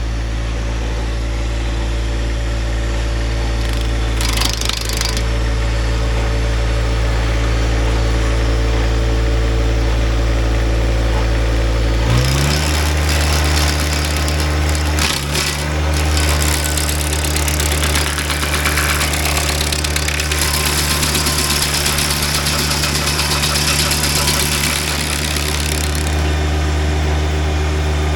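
Tractor engine running a PTO-driven stump grinder. About halfway through the engine speeds up, and a broad grinding noise joins as the 24-inch carbide-toothed disc cuts into wood, loudest a little later.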